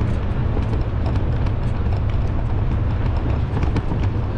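Footsteps on a paved street during walking, heard as a run of short clicks over a steady low rumble on the handheld action camera's microphone.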